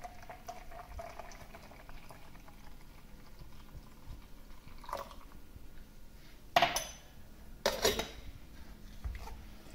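Orange juice being poured into a container of cold milk and ice, a faint steady pour in the first few seconds. It is followed by a few short kitchenware knocks, the loudest two about seven and eight seconds in.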